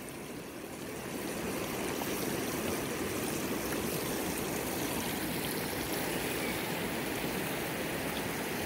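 River water flowing: a steady rushing that grows a little louder about a second in and then holds.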